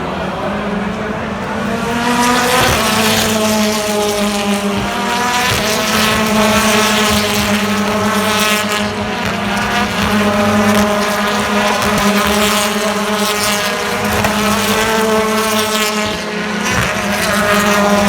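British Touring Car Championship race car's 2.0-litre turbocharged four-cylinder engine at racing speed. Its pitch climbs and falls again several times.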